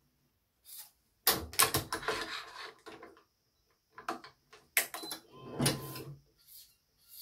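Badminton racket stringing work on a stringing machine: two stretches of clicking and clattering mixed with rustling as the BG80 string and the machine are handled, about a second in and again about four seconds in.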